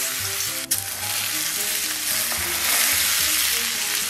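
Smoking-hot oil sizzling steadily as it hits chili powder, ground spices, sesame seeds, scallions and garlic in a bowl, making a chili-oil dressing.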